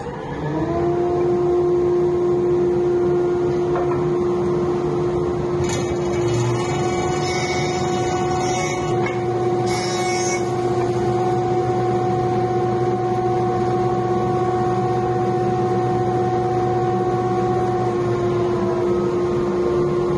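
Jointer starting up, its whine rising in pitch within the first second, then running steadily. A walnut board is fed over the cutterhead, with a hissing cut about six to nine seconds in and a short second cut near ten seconds.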